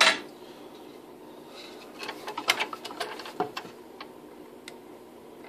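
Clicks and knocks of a scroll saw's blade and the workpiece being handled between cuts: one sharp click at the start, then a cluster of clicks and knocks about two to three and a half seconds in, over a faint steady hum.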